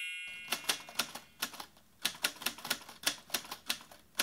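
Typewriter sound effect: a run of quick, uneven key clicks, about four a second, starting a moment in.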